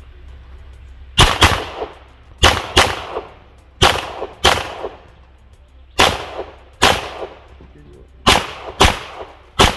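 Handgun shots fired in quick succession, mostly in close pairs, about eleven in all, each with a short echo trailing after it.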